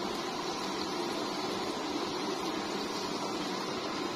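Hot cooking oil in a wide wok sizzling steadily, bubbling around floating bits of the chicken's flour coating: the oil is at frying heat.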